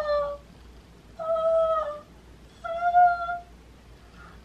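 A woman's voice in drawn-out, high-pitched squeals of delight ("so… pretty!"): three long held notes, the first fading just after the start and two more about a second and a half apart.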